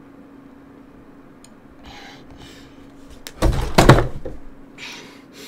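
A loud thump about three and a half seconds in, over a steady low hum.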